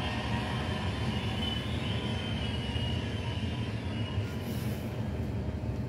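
Steady low rumble of a motor yacht under way, engines and hull noise heard from inside the wheelhouse.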